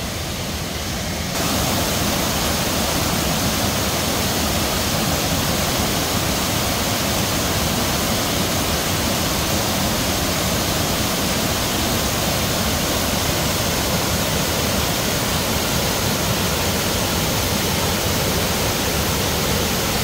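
Steady rush of water pouring over a wide, tiered waterfall in heavy, muddy flow, getting louder about a second in.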